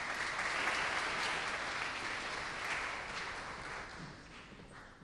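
Audience applauding in a large hall. The applause is steady at first and fades away over the last couple of seconds.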